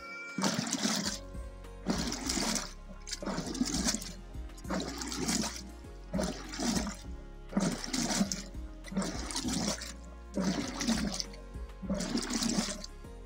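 Wooden churning stick being worked back and forth in a tall wooden churn of curd and buttermilk: a rhythmic swish and slosh of the liquid, about one stroke every second and a bit, churning out the butter.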